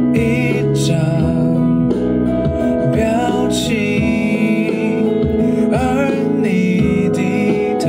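A man singing a Mandarin pop ballad over instrumental accompaniment, his held notes wavering with vibrato.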